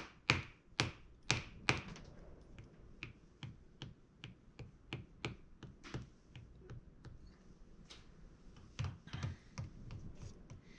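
Wooden potato masher tapping against a clay sculpture of a horse: a steady series of short, light knocks, about two to three a second, louder at first, with a few heavier knocks near the end.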